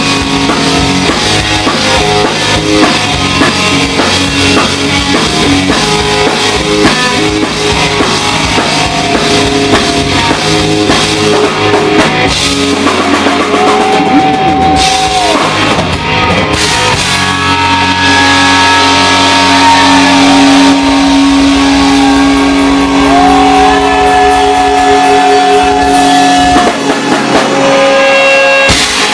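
Loud live rock band playing, with electric guitar and drum kit. Long held notes with bends come in about halfway through.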